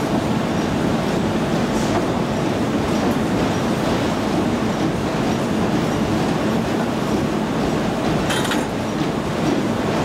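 Automatic die-cutting and stripping machine running with a steady mechanical rumble and clatter. A brief hiss comes about eight seconds in.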